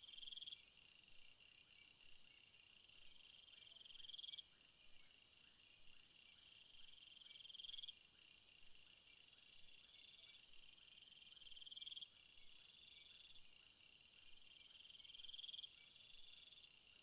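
Faint nature ambience of trilling and chirping calls: high trills that swell for a second or two and stop abruptly, again and again, over rapid, evenly repeated high chirps.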